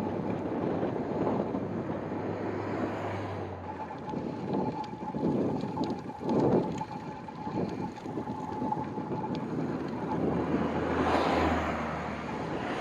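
Headwind buffeting the microphone of a camera on a moving bicycle, with motor vehicles overtaking close by: one early on and another swelling up near the end.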